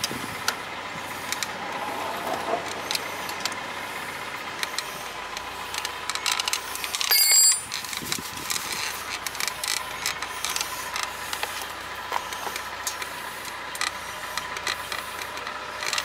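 Light metallic clicks of an open-end wrench working the fitting of a motorcycle rear brake light switch, with handling sounds, over a steady mechanical hum. A short, louder burst of noise about seven seconds in.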